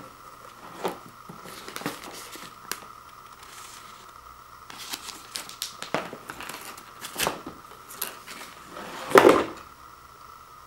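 Paper warning tags sewn to a heating pad crinkling as the pad is handled, with its soft fabric rustling: a run of short irregular crackles, the loudest and longest about nine seconds in. A faint steady tone lies underneath.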